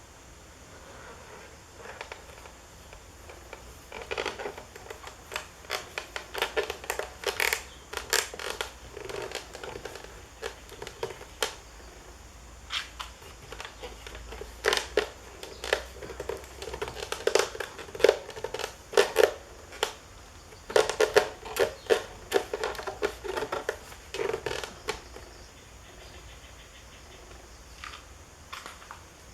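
Irregular runs of sharp clicks and scraping, as of hard parts being handled, coming in clusters with short gaps between them.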